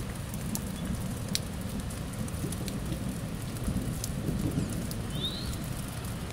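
Steady rain falling on wet ground, with scattered drips tapping close by and a low rumble underneath. A single short, high chirp comes about five seconds in.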